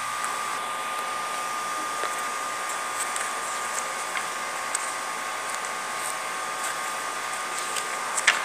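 Paper catalogue pages being turned by hand, with faint paper ticks and one sharper flick near the end, over a steady rushing background noise with a thin, even whine.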